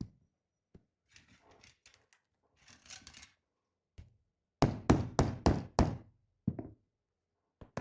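Light scraping on a phone's glass screen protector, then a quick run of about five sharp knocks on the glass a little past halfway, and one more knock after, testing that it does not crack.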